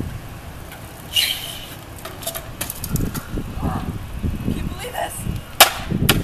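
A bicycle going down on asphalt, with indistinct voices and a noisy burst about a second in. A single sharp knock comes near the end, as a thrown helmet hits the road.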